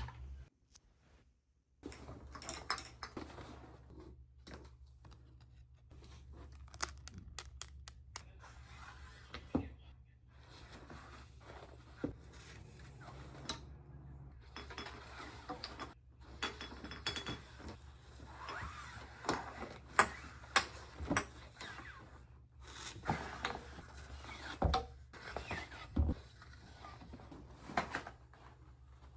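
Objects being handled: scattered knocks, clinks and rustling over a low steady hum, broken up by several abrupt cuts.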